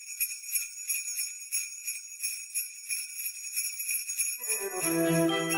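Sleigh bells jingling in an even shake, about three strokes a second. About four seconds in, music comes in with a falling sweep into a low held note and chiming bell-like notes.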